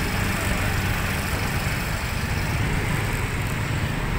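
Motor scooter engine running steadily at low speed, with road noise.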